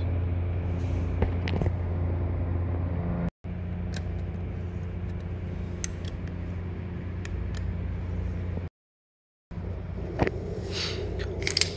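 A steady low mechanical hum with a few light metallic clicks, as a ring spanner works the brush cutter's handlebar clamp bolt. The sound cuts out abruptly twice, very briefly a little after three seconds in and for nearly a second near the end.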